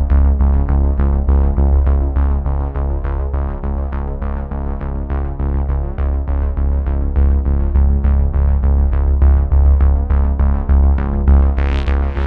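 Electronic synthesizer music with a strong bass and a quick, even pulse of about four notes a second, with a short swish near the end.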